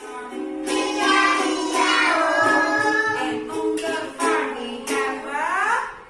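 Children's song sung with instrumental accompaniment, with a child's voice among the singers.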